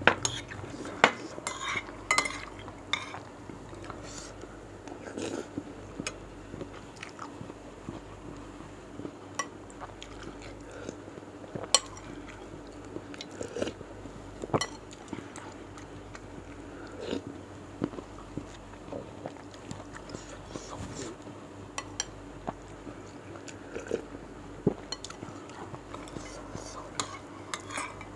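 Close-miked eating: a metal spoon and fork clinking and scraping irregularly on a ceramic plate, with chewing of bakso meatballs and rice in between.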